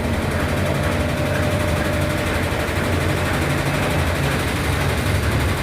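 Brastemp BWH15 15 kg washing machine in its spin cycle, running empty, with a loud, continuous rapid rattling over the drum and motor hum. The noise is the pressure-switch hose banging against the cabinet as the machine vibrates, not a worn bearing.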